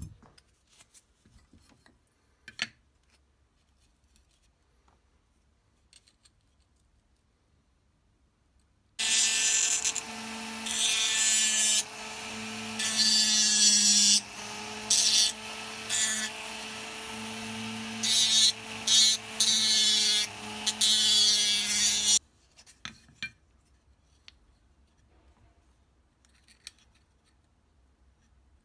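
Handheld rotary tool with a sanding drum running for about thirteen seconds, starting about nine seconds in: a steady motor whine with a grinding hiss that swells and drops as the drum is pressed to and lifted from a wooden knife-handle scale. Faint handling clicks come before and after it.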